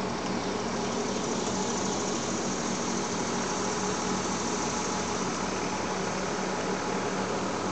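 Kobelco SK330 tracked excavator's diesel engine idling steadily.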